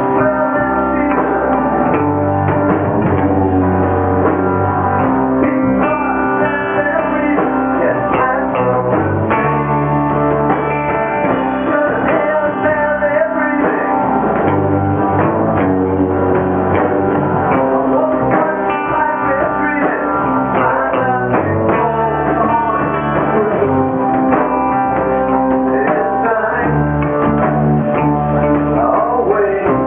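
Rock band playing live: electric guitar chords over bass guitar and drum kit, the bass moving between held low notes every couple of seconds.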